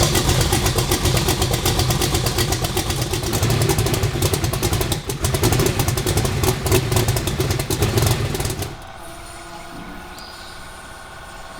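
Twin-turbo HEMI V8 running loud and uneven at low speed, with rapid firing pulses. It shuts off abruptly about 9 seconds in, leaving a quieter steady hum.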